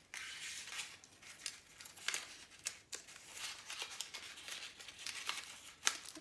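Construction paper rustling and crinkling as it is handled and wrapped around a wooden stick, in short uneven rustles with a few sharper crackles.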